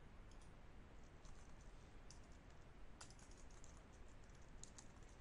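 Faint clicking of a computer keyboard being typed on: scattered single keystrokes, coming closer together near the end.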